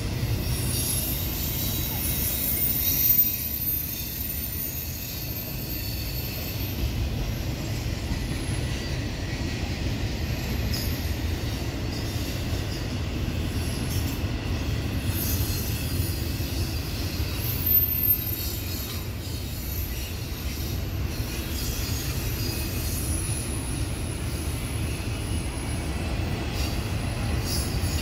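Double-stack intermodal freight cars rolling past: a steady low rumble of wheels on rail with high-pitched wheel squeal that comes and goes. Two short louder knocks, about three seconds in and again around eighteen seconds.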